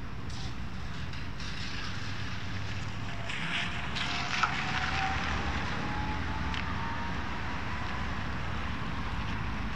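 Passing cars on a wet road: steady tyre hiss and engine rumble, with a faint rising whine in the middle and wind on the microphone. A short click about halfway through.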